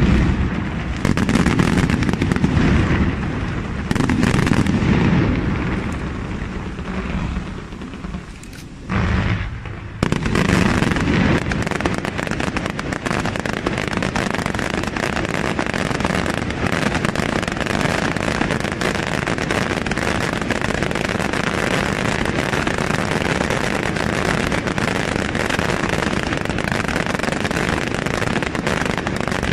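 Fireworks display: aerial shells booming heavily for the first several seconds, then a short lull broken by one burst. From about ten seconds in, a dense, unbroken barrage of reports runs on.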